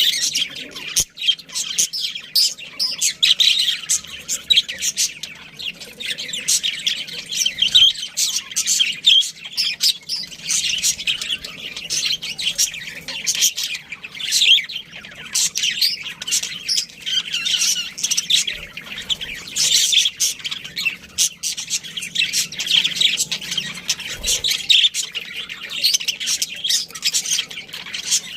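A group of budgerigars chirping and chattering continuously, many high, quick notes overlapping with squawks among them.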